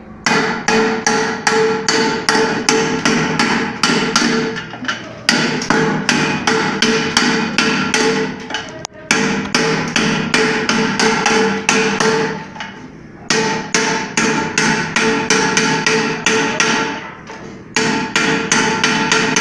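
Wooden mallet beating the rim of an aluminium pressure-cooker body, about three strikes a second in runs of several seconds with short pauses. The pot rings with each blow. The rim is being hammered back level after the pan swelled out of shape.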